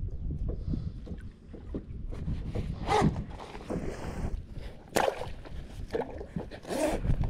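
Water slapping against a kayak's hull, with wind rumbling on the microphone and three sharper slaps about three, five and nearly seven seconds in.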